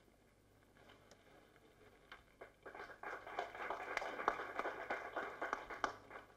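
Near silence for about two and a half seconds, then faint rustling with light, irregular clicks for about three and a half seconds.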